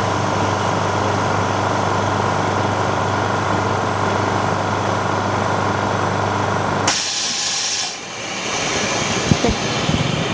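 Vacuum pump of an OCA vacuum laminating machine running with a steady hum while the laminating cycle holds vacuum. About seven seconds in it cuts off and air is let back in with a short, loud hiss, the sign that the cycle has ended. A fainter hiss then trails away.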